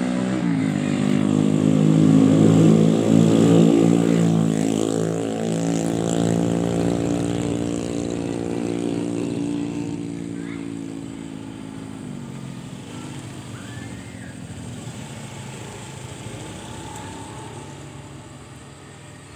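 A motor engine running with an even, pitched hum, loudest a few seconds in and then slowly fading away, its pitch sagging slightly as it goes.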